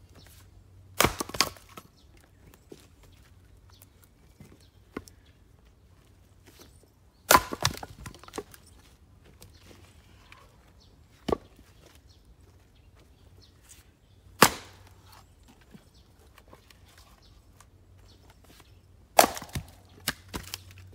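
Splitting axe chopping black locust firewood rounds on a chopping block: four sharp, loud chops several seconds apart, each followed by a few smaller knocks of wood, with one fainter knock in between.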